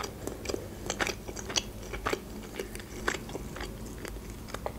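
A person chewing food, with short mouth clicks about two a second.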